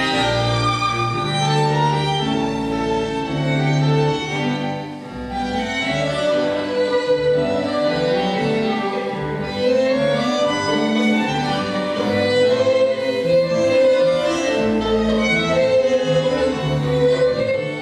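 Instrumental music led by violin and strings, with held notes over a low bass line.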